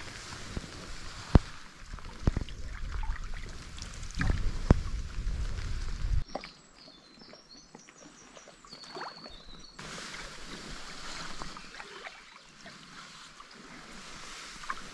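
A cedar-strip canoe being paddled: paddle strokes and moving water, with a few sharp knocks and a low rumble in the first six seconds. It changes abruptly to a quieter stretch of water sound.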